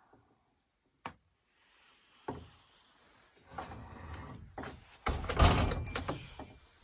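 Cabin door being pulled shut: a sharp click about a second in, a knock a second later, some scraping and rustling, then a heavy thump with rattling about five seconds in as the door closes.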